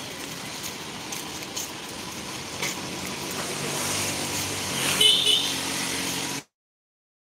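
Street traffic with a motor vehicle's engine growing louder from about three seconds in as it passes close, and a brief high chirp about five seconds in. The sound cuts out completely near the end.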